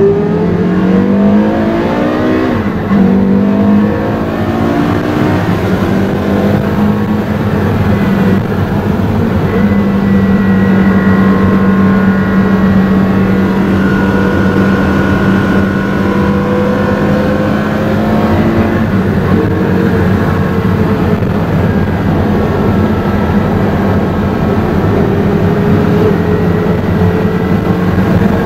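Porsche Carrera GT's 5.7-litre naturally aspirated V10 heard from inside the cabin under way. Its revs climb over the first couple of seconds, drop with an upshift, then hold at an almost steady pitch while cruising.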